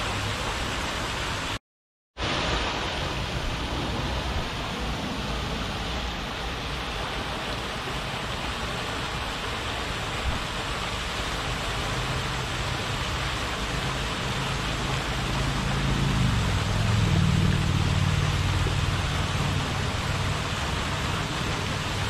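Lake fountain jets falling back onto the water, a steady hiss of splashing spray. The sound cuts out completely for about half a second near the start. A low hum swells up and fades back in the later part.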